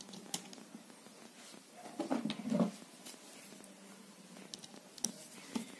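Faint handling sounds: a few light clicks of small parts and a screwdriver as the cord clamp is screwed down over an angle grinder's power cable at its switch, with a short low sound about two seconds in.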